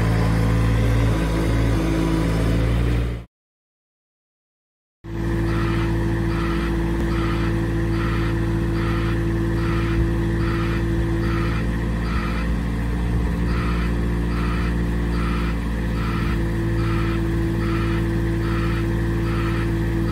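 Diesel engine of a MEC 60-J articulating boom lift running steadily. After a short drop-out to silence about three seconds in, a steady hydraulic whine runs under the engine along with an evenly repeating beep, about one and a half a second: the lift's motion alarm as the boom is worked.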